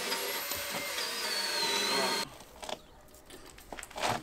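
An electric power tool runs steadily with a high whine that sags slightly in pitch, then cuts off about two seconds in; a few light knocks follow.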